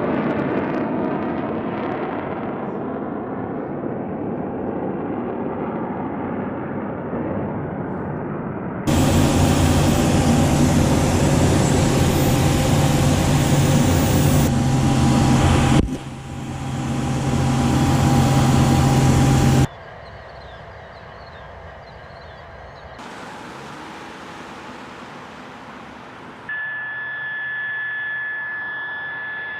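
Jet engine sound of the NASA ER-2 high-altitude aircraft's single turbofan, in several abruptly cut shots. A fading engine sound with sliding pitch gives way about nine seconds in to a loud close engine run with steady low tones. Near the end, after quieter stretches, a high steady whine takes over.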